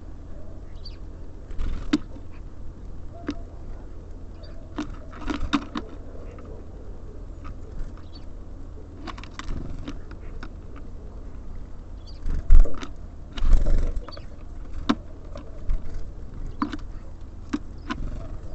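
Small birds at a bird feeder pecking and scrabbling at seed, giving irregular sharp taps and clicks with a few faint short chirps. There are two louder thumping flurries about twelve and a half and thirteen and a half seconds in, like birds landing or fluttering. A steady low rumble runs underneath.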